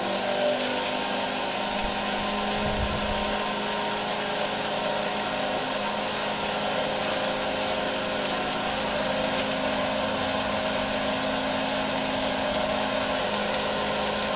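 Small 12-volt water pump running steadily off a battery charger at its 2-amp setting, with the hiss of water spraying from a cone nozzle inside a steel scrubber drum.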